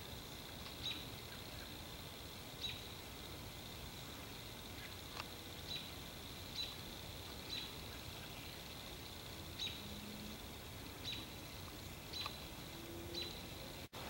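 Faint outdoor evening ambience: short, high chirps or ticks come about once a second, irregularly spaced, over a steady faint high tone.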